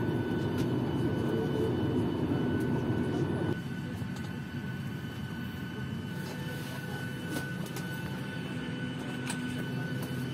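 Steady cabin and air-system noise of a parked Boeing 737-800, with a constant high whine. About three and a half seconds in it drops to a quieter cabin hum, with occasional light clicks and knocks.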